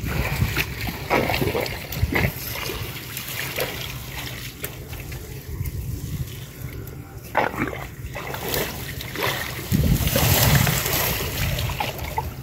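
Shallow canal water splashing and sloshing as someone wades and gropes through it, with scattered small splashes and a louder rush of splashing about ten seconds in.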